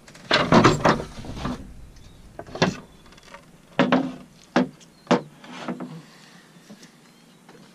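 Wooden knocks and scraping at a sailboat's wooden companionway: a clatter lasting about a second and a half, then five or six separate sharp knocks spread over the next few seconds.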